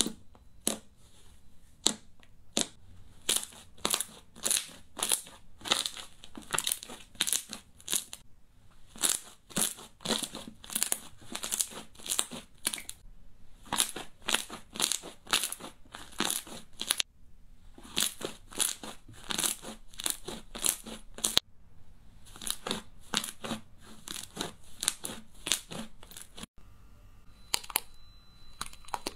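Thick white fluffy slime being poked and squeezed by hand, giving quick runs of sharp crackling pops, about two a second, with short pauses between runs. Near the end the pops stop and only a few faint clicks remain.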